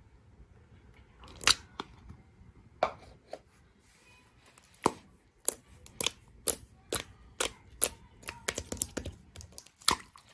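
Slime being pressed and stretched by hand, giving sharp clicking pops: a few scattered at first, then about two a second, bunching into a quick run of crackles near the end.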